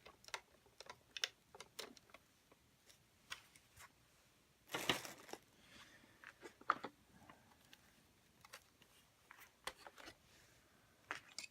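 Scattered light clicks and taps of a robot vacuum's plastic parts being handled during disassembly, with one louder rustle about five seconds in.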